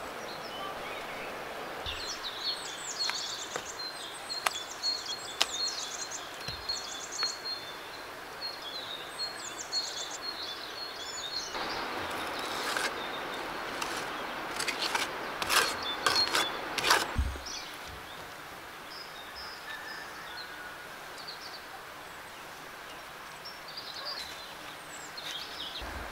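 Small birds chirping and trilling in repeated phrases over steady outdoor ambience. In the middle come several seconds of rough scraping with sharp slaps, as wet clay is pressed and smoothed by hand around log rounds in a cordwood wall.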